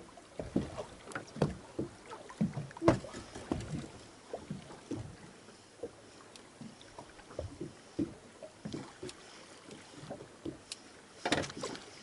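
Irregular knocks and bumps on a small fishing boat, with water slapping at the hull. There is a sharper knock about three seconds in and a cluster of louder knocks near the end.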